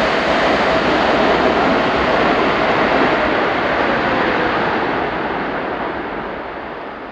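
Boeing 787-8's Rolls-Royce Trent 1000 jet engines at reverse thrust on landing rollout: a loud, steady rush with a faint whine that falls in pitch about halfway through. The noise fades over the last two seconds as the reversers throw up snow.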